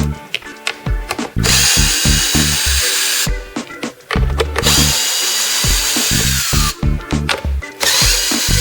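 Background music with a steady low beat, overlaid by loud whirring bursts of a power tool or motor that start and stop about every second or two.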